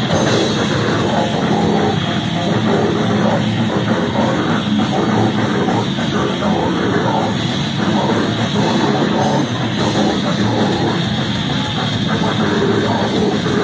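A heavy metal band playing live: electric guitar, bass guitar and drum kit, loud and dense throughout.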